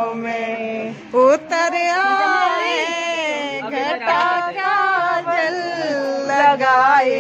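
A woman singing a melody with long held, wavering notes, and a short loud sound about a second in.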